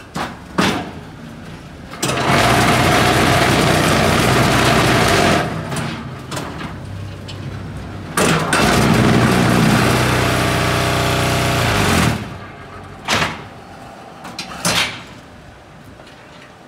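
QT4-15B concrete block machine working through a moulding cycle. Two spells of loud, steady shaking from its vibration motors, the first about three seconds long and the second about four, the second winding down in pitch as it stops. Sharp metal clanks and knocks from the mould and press moving come before, between and after.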